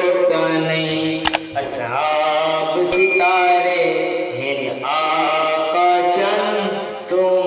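A man singing a naat, an Islamic devotional poem, solo voice with no instruments, in long held, ornamented notes into a handheld karaoke microphone. A few sharp clicks break in during the first half.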